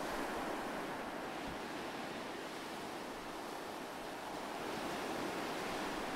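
Ocean waves washing steadily, swelling slightly near the end.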